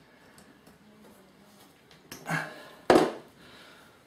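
Quiet handling of bonsai wire being twisted tight with pliers, then a short sharp knock just under three seconds in.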